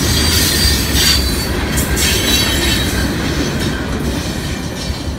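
Freight train's open-top hopper cars rolling past, a low rumble of wheels on rail with brief high-pitched wheel squeals in the first couple of seconds. The sound fades gradually as the last cars go by.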